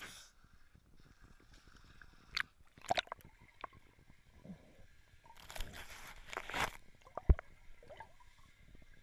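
Muffled water sounds of a sea lion swimming close around the camera in a pool: scattered clicks and knocks, two short bursts of sloshing around the middle, and one sharp knock late on.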